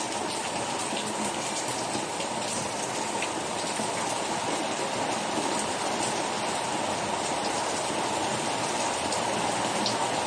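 Steady rainfall: an even hiss with a few sharp drop taps.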